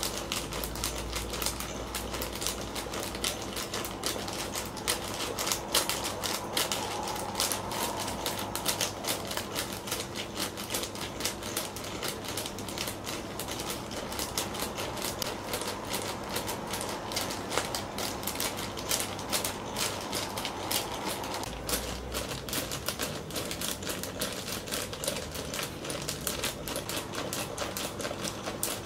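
Motorised cat toy, a furry tail poking out of a crinkly plastic snack-bag pouch, jerking about on its own: the plastic crackles and rattles in fast, dense clicks over a faint steady hum.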